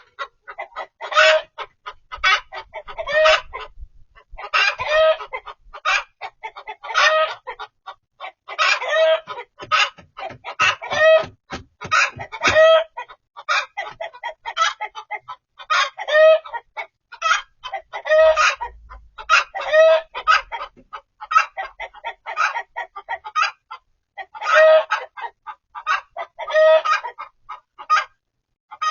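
Chickens calling over and over: short clucking squawks, roughly one a second throughout.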